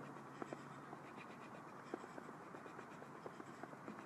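Faint, rapid, irregular patter of feet tapping the ground in quick steps in place during a fast-feet drill.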